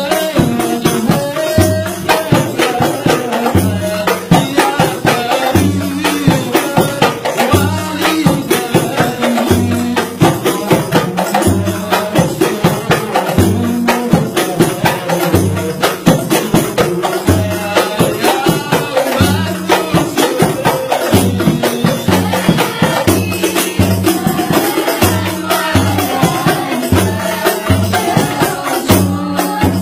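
Hadrah ensemble performing an Arabic shalawat devotional song: several rebana frame drums beat a steady, interlocking rhythm under a man singing lead into a microphone, with other voices singing along.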